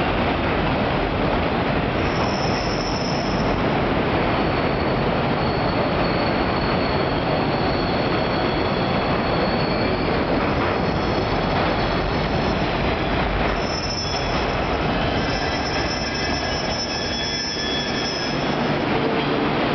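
A JR 415 series electric multiple unit pulling out and rolling past, its wheels on the rails giving a steady, loud rumble. High wheel squeals ring out about two seconds in and again through much of the second half.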